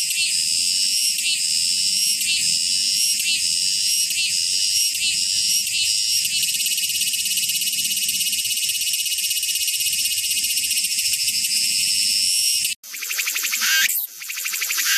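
Cicadas singing: a loud, high buzzing song that pulses about twice a second, then runs on as one unbroken buzz about halfway through. Near the end it cuts off abruptly and a different cicada's call begins, a buzz that swells in rising sweeps a little over a second apart.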